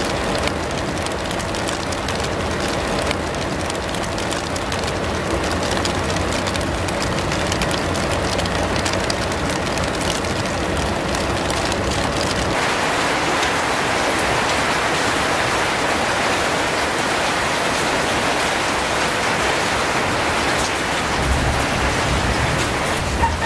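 Heavy rain falling steadily in an even hiss that grows brighter about halfway through.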